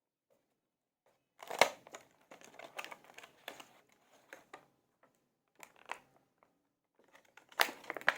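Car charger packaging being opened and handled by hand: crinkling and rustling with sharp clicks, starting about a second and a half in, the loudest click right at the start and another near the end.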